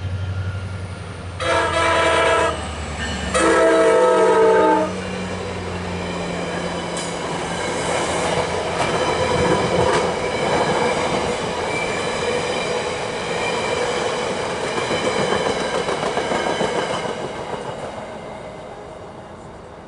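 Horn of a VRE MP36PH-3C diesel-electric locomotive sounding two blasts, each over a second long, close together, over the low rumble of its diesel engine. The train then passes with a steady rumble and clatter of wheels on rail that fades away near the end.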